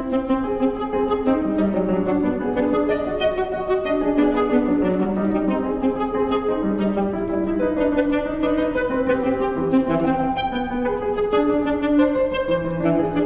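Alto saxophone and grand piano playing contemporary chamber music. The saxophone holds a line of notes that change pitch every second or so, overlapping with struck piano notes.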